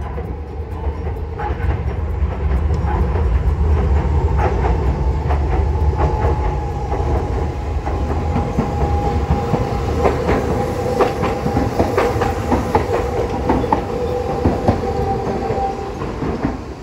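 Hiroshima Electric Railway 3800-series articulated tram approaching and passing on street track: a low rumble and a steady whine, with many clicks and knocks as the wheels run over the rail joints.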